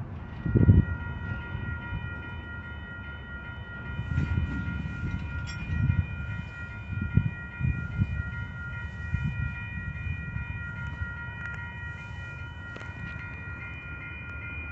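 Railroad grade-crossing warning bell starting up just as the signals activate, then ringing as one steady, unbroken set of high tones, with low wind gusts rumbling on the microphone.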